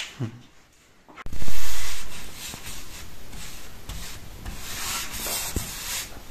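Flat paintbrush stroking black chalk paint along a wooden panel: the bristles make a steady rubbing hiss with stroke-by-stroke swells. The loudest rub comes about a second and a half in.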